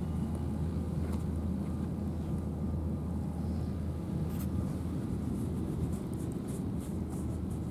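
Steady low outdoor rumble, with a few faint soft rustles in the second half.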